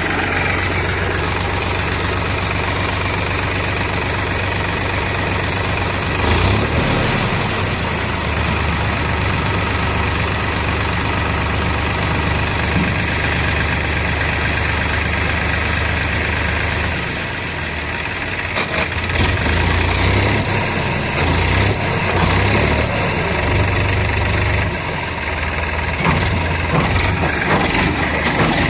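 Diesel engine of heavy farm or construction machinery running steadily. Its note dips and wavers about six seconds in and through much of the second half, as the engine takes load, with a few short knocks.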